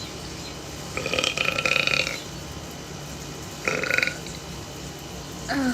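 A woman belching loudly twice: a long burp about a second in, then a shorter one a couple of seconds later. The repeated belching is put down to acid reflux.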